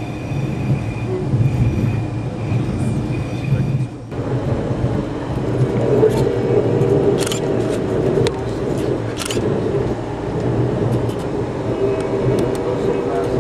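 Ride noise inside a passenger coach of the Ontario Northland Northlander: a steady rumble of the train rolling along the track. About four seconds in, the sound cuts to another stretch of the run, where a steady hum and a few sharp clicks join the rumble.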